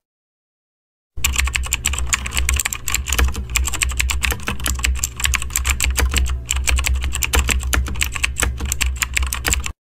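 Rapid, irregular clicking, much like typing on a keyboard, over a steady low hum. It starts about a second in and cuts off abruptly near the end.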